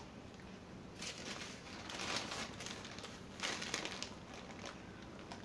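Paper sandwich wrapper crinkling in three short rustles as a meatball sub is handled and bitten.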